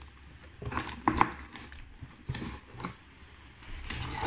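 Cardboard packaging being handled: an inner box slides out of its cardboard outer carton with rubbing and scraping, and a few light knocks about a second in and again past two seconds.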